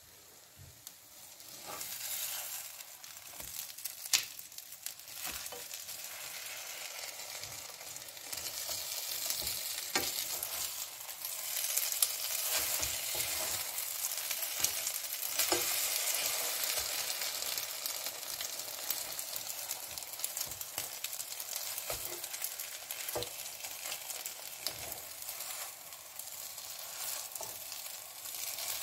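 Food sizzling in a pan, a steady hiss, with occasional sharp clicks of a utensil against the pan.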